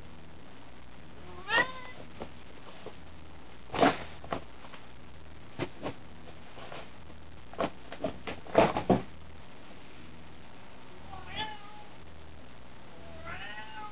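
A cat meowing three times, once near the start and twice near the end. In between, a string of short, sharp crackling rustles as the cat paws and pushes into a reusable plastic shopping bag; the loudest comes about two-thirds of the way through.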